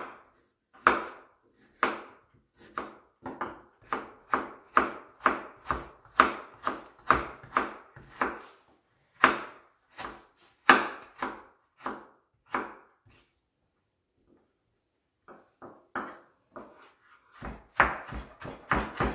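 Kitchen knife slicing ginger on a wooden cutting board, the blade knocking on the board about twice a second. After a pause of about two seconds the strokes come back, faint at first, then quicker near the end.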